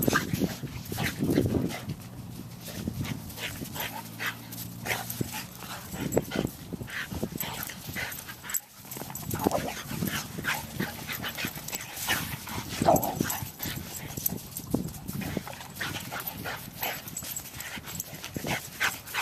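A Boxer and a cattle dog mix playing rough, with short, irregular dog vocalizations and quick scuffling steps in sand.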